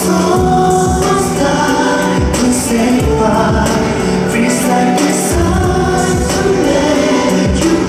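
Live K-pop song in concert: sung vocals over a band backing with a steady drum beat.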